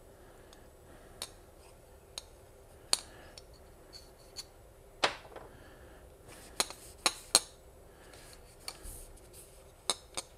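Scattered light metallic clicks and clinks as a piston and connecting rod are handled and wiped with a rag. There are about a dozen sharp ticks at irregular intervals, the loudest about three, five and seven seconds in.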